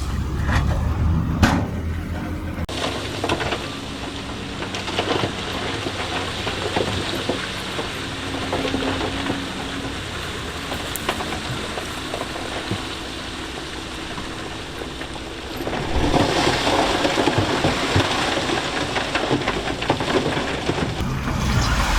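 Heavy earthmoving machinery working on loose stone: a diesel engine running under a steady, gritty rumble that grows louder and rougher about three-quarters of the way through.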